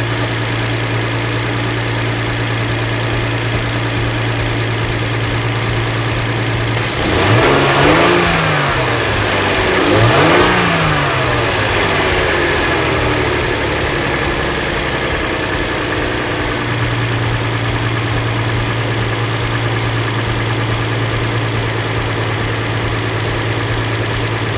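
A 2007 Hyundai Entourage's 3.8-litre V6 idles steadily and is revved twice, about seven and ten seconds in, each rev rising and falling back to idle. It holds its idle and takes the throttle on a newly fitted MAF/IAT sensor, which cured its stalling.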